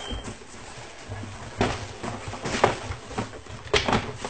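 Paper wrapping and cardboard rustling in several short bursts as a box is unpacked by hand, with a sharper crackle near the end.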